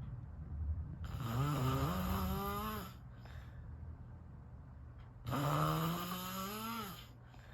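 A person snoring: two long, pitched snores about four seconds apart, each lasting nearly two seconds, with a wavering pitch.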